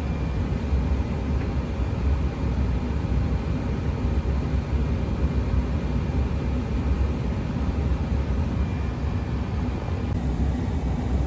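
American Standard gas furnace running on second-stage heat: a steady rumble of burner flame and fans, with a faint thin high whine that stops near the end.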